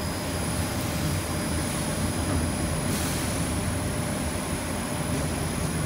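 Steady mechanical running noise of a 1500 W fiber laser cutting machine as its pallet exchange table shuttles the cutting pallets, with a faint steady high whine over it.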